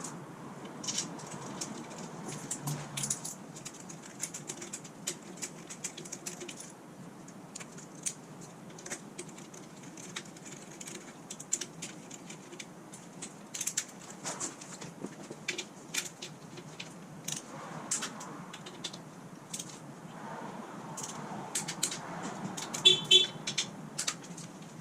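Metal tools and parts clinking and clicking irregularly, with a short squeak about 23 seconds in.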